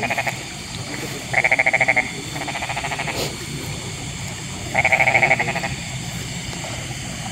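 Frogs calling: three bursts of rapid pulsed croaks, about a second in, around three seconds, and about five seconds in, over a steady high-pitched background hiss.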